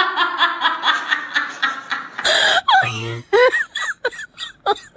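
A person laughing: a fast run of 'ha-ha' pulses, about five a second, then after a short breathy burst a string of separate, short, high-pitched laughs.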